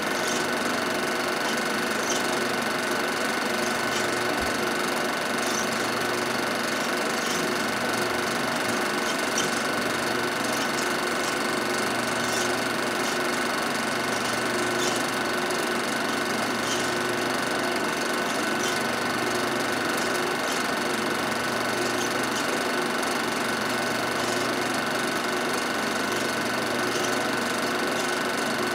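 A film projector running: a steady mechanical whir and clatter with a constant thin hum.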